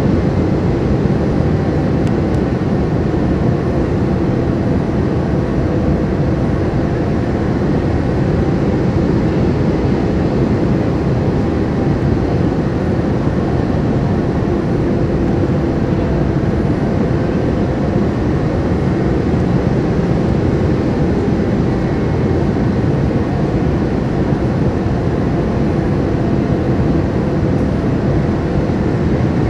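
Steady cabin noise inside a Boeing 787-9 airliner on final approach: engine hum and rushing airflow, with a few faint steady tones running through it.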